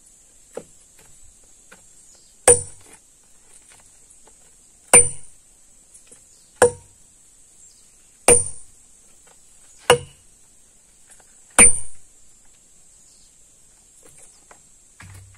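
Sledgehammer striking steel splitting wedges set in a stone to split it: six ringing metal-on-metal blows, about one every second and a half, with a light tap before the first.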